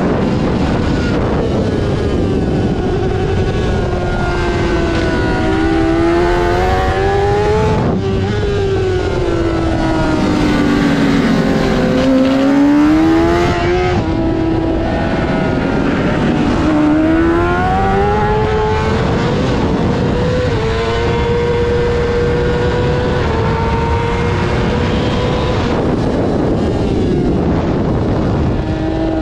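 Honda CBR600 inline-four engine at race pace, the revs repeatedly climbing and then dropping away, with a long steady stretch at high revs past the middle.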